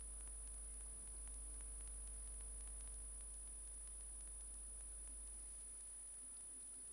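Faint steady low hum with faint, scattered ticks over it.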